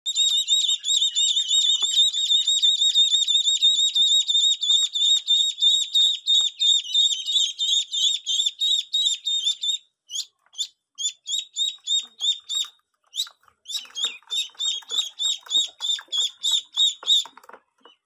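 A group of domestic ducklings peeping, high and shrill, many calls a second overlapping. About ten seconds in they thin out into separate peeps with short breaks, then stop just before the end.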